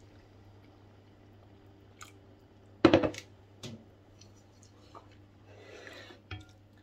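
Plastic jug set down on a stone kitchen counter with a loud knock about three seconds in, followed by a smaller knock. Then a wooden spoon stirring soup in an enamelled cast-iron pot, with a light tap of the spoon against the pot near the end.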